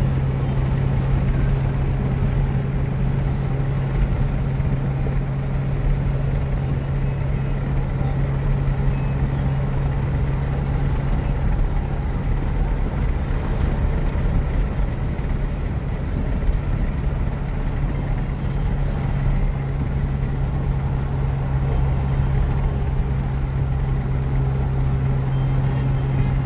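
A car at highway speed heard from inside the cabin: steady road and engine noise with a constant low hum.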